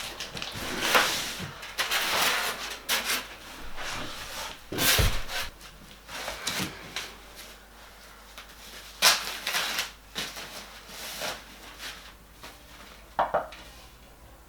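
Large flat-pack cardboard boxes being opened and unpacked: cardboard and packaging scraping and rustling, with scattered knocks as wooden panels are handled and a heavier thump about five seconds in.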